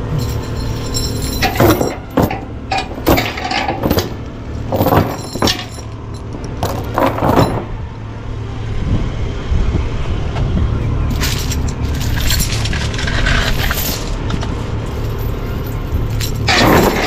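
Steel transport chains clanking and rattling as they are pulled up and carried onto a flatbed trailer to chain down a load: a string of sharp clinks over the first several seconds, more in the middle, and a loud clatter near the end, over a steady low hum.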